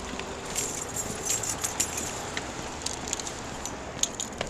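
Walking noise picked up by a body-worn camera: scattered light clicks and rattles with rustling, over a steady outdoor hiss.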